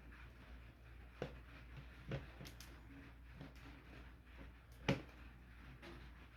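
A few faint, short knocks and clicks over a low steady hum, from two joined plastic water bottles being handled and swirled; the sharpest knock comes about five seconds in.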